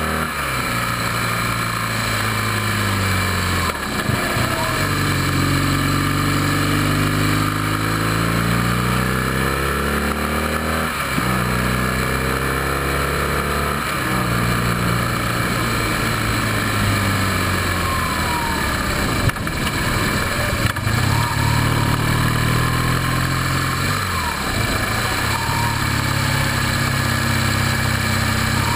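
BMW motorcycle engine pulling hard on a mountain climb, its note rising in pitch and then dropping at each gear change several times, under steady wind and tyre noise from a camera mounted by the front wheel.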